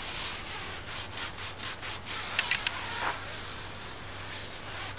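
Foam applicator pad rubbing tire gel into a car tire's rubber sidewall in quick, repeated back-and-forth strokes, giving a steady scrubbing swish.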